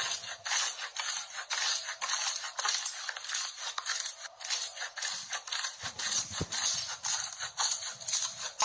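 Slime being squeezed and pressed by hand, a crackly squishing repeated about three times a second.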